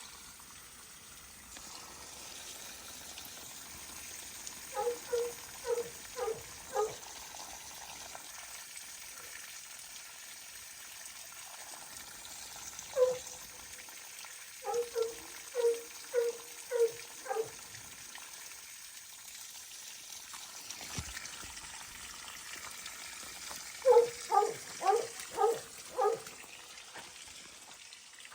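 Dog barking in three runs of five or six quick barks, with a single bark between the first two runs, over a steady background hiss.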